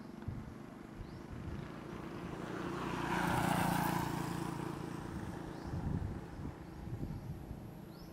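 A motor vehicle passing close by: its engine and tyre noise grow to a peak about three and a half seconds in, then fade away.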